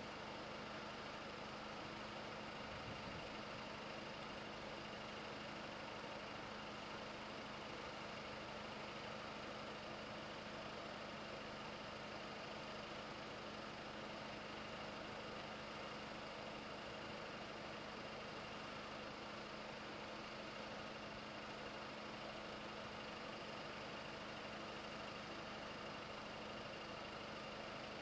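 Steady background hum of idling road traffic: a constant low drone under an even hiss, with no crossing bells ringing and no train passing.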